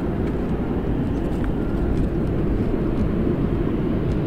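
Wind rumbling on the microphone, a steady low noise with no clear tone.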